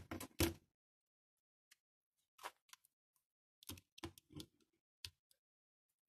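A few light clicks and knocks from a smartphone being set down and handled on a workbench mat. There is a single tap or two about two and a half seconds in, a small cluster of knocks around four seconds, and one last click near five seconds.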